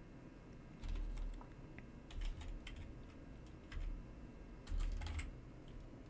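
Typing on a computer keyboard in about four short bursts of keystrokes, each burst with a dull low knock under the clicks.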